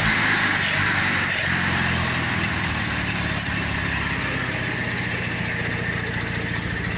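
Briggs & Stratton V-twin engine on a stripped-down riding mower, running with its air box removed. It eases down from a rev over the first couple of seconds and then idles steadily.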